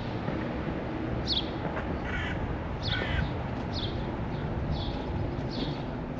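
Birds calling: short high chirps that fall in pitch, repeated every second or so, with two harsher, noisier calls about two and three seconds in, over a steady low background rumble.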